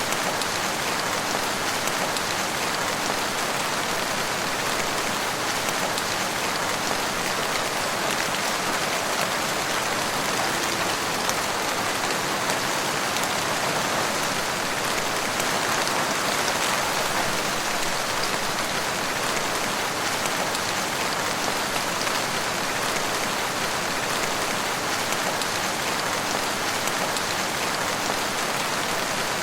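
Steady rain falling in a forest, a dense, even hiss of drops with fine pattering ticks, unchanging in strength.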